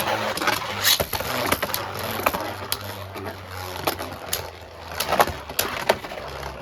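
Two Beyblade Burst tops, Blizzard Longinus and Devil Lucifer, spinning in a plastic stadium: a steady whirring with irregular sharp clacks as they collide, the loudest hit about five seconds in.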